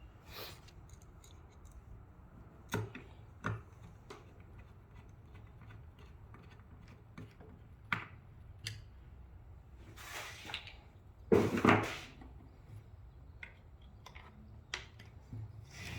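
Scattered clicks and light knocks of roof crossbar parts being handled and screwed together, with a louder clatter about eleven seconds in.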